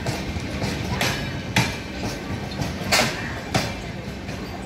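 Express train's LHB coaches rolling slowly past, the wheels clacking over a rail joint in pairs: two quick clacks about a second in and two more near the end, over a steady low hum.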